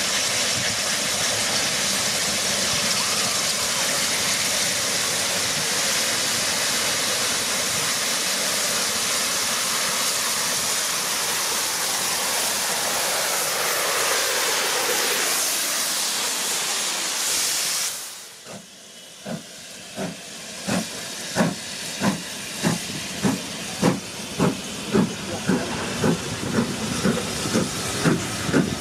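Steam hissing loudly and steadily from BR Standard Class 7 'Britannia' locomotive No. 70000 standing at the platform; it cuts off abruptly about two-thirds of the way in. Then the train moves off with regular beats that quicken steadily as it gathers speed.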